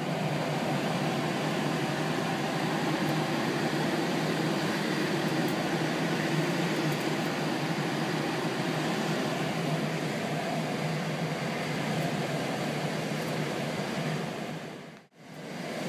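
Steady rush of air over the canopy inside a sailplane's cockpit in gliding flight, with no engine. It dips out briefly near the end and comes back.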